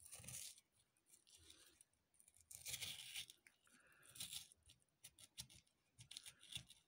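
Kitchen knife slicing along the back of a whole sea bass to free the fillet from the backbone, giving faint scraping, tearing strokes as the blade works through flesh and over the bones. A run of small ticks comes near the end.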